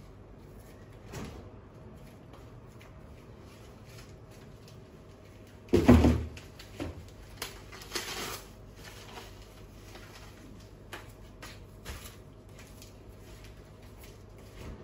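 Kitchen handling sounds: one loud knock about six seconds in, then a few lighter knocks and clicks, over a faint steady hum.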